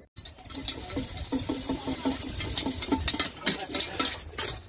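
Steel pots and utensils clattering and a knife cutting on a board as pineapples are sliced at a fruit stall: rapid irregular clicks and knocks over a steady hiss.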